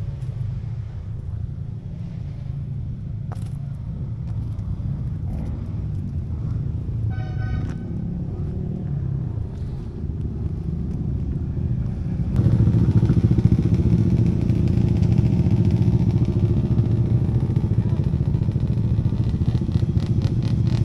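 Motorcycle engines running nearby, a steady low rumble that gets louder about twelve seconds in.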